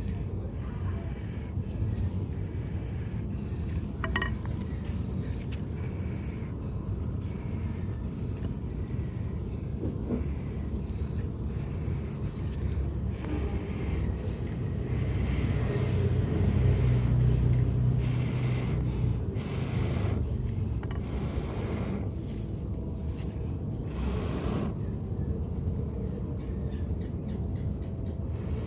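Insect chorus: a steady, high, rapidly pulsing trill that goes on without a break. A low rumble swells and fades around the middle.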